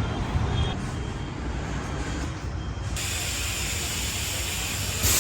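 Steady low rumbling noise; about three seconds in, a loud steady hiss starts on top of it.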